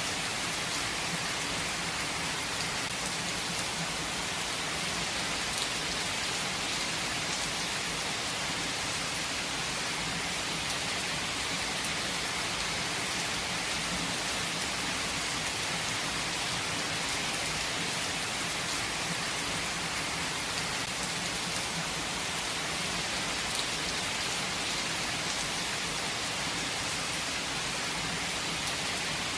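Steady rain falling, an even hiss with scattered drops pattering on surfaces.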